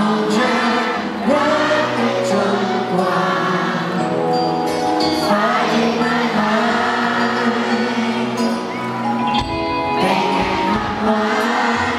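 A man singing a pop song live into a handheld microphone over musical accompaniment.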